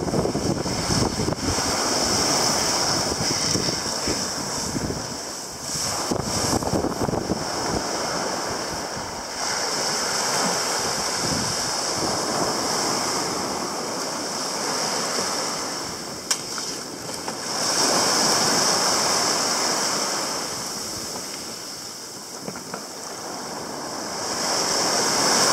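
Small waves breaking and washing up a sand beach, the hiss surging and fading every several seconds. Wind buffets the microphone with a low rumble, mostly in the first part.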